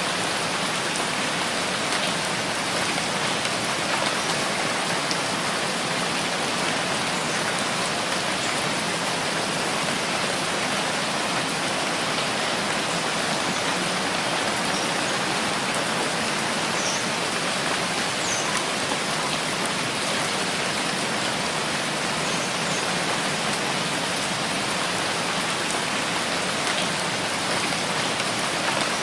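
Rain falling steadily, an even, unchanging hiss.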